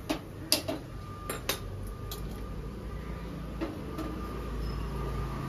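Gas stove burner being lit: several sharp clicks in the first second and a half, then the flame's steady low rush, growing louder.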